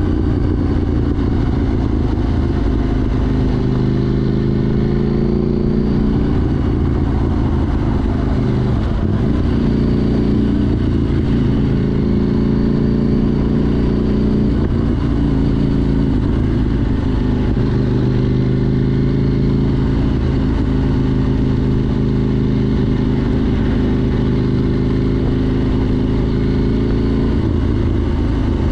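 KTM 790 Duke's parallel-twin engine running loud through an Arrow Race Tech exhaust with the catalytic converter removed, while riding. Its pitch rises and falls again and again with throttle and gear changes.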